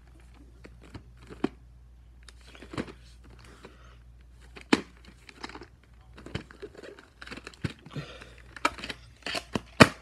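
Plastic VHS clamshell cases being handled and opened and a cassette taken out: a string of sharp plastic clicks, knocks and rattles, the loudest about five seconds in and just before the end.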